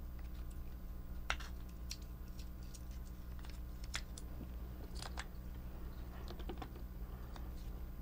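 Small plastic clicks and taps, scattered and irregular, as the plastic gears and gearbox housing of a toy robot are handled and fitted together, over a low steady hum.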